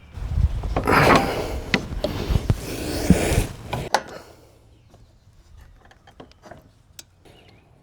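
Loud metal scraping and clattering of a wrench working the crankshaft pulley bolt loose under a riding mower. After about four seconds it gives way to scattered light clicks and taps.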